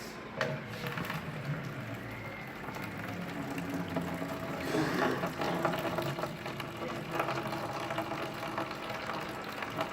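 Cooking at the stove: a pan of food sizzling, with a run of small utensil clicks and scrapes that gets busier about five seconds in.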